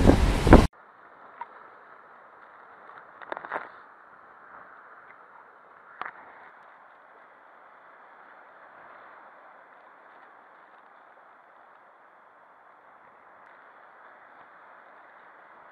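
Wind buffeting the microphone over breaking storm-surge waves, loud, cut off suddenly within the first second. Then only a faint, muffled steady hiss of surf, with a couple of faint knocks about three and a half and six seconds in.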